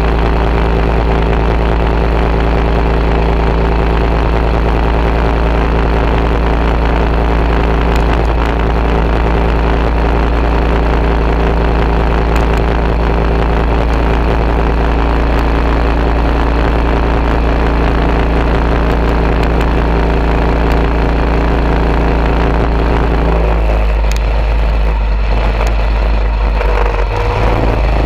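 Coleman mini bike's small single-cylinder engine running steadily under way, heard close up. Its steady note breaks up and changes for a few seconds near the end, then settles again.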